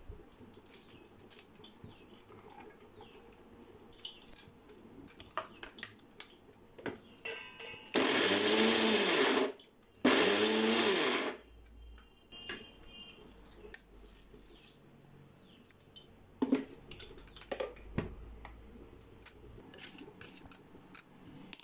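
Kitchen mixer grinder (mixie) run in two short pulses of about a second and a half each, starting about eight seconds in, each rising and falling in pitch as the motor spins up and winds down. It is a brief coarse grind of soaked chana dal with onion, garlic, chilli and ginger for vada batter. Soft clicks and squishes of batter being worked by hand in a steel bowl come before and after.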